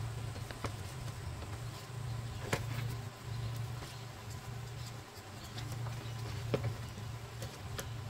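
Light handling noise from a cardboard template being pressed and marked against a car's sheet-steel body panel, with a few sharp clicks, the strongest about two and a half and six and a half seconds in. A low buzz that wavers up and down lies under it throughout.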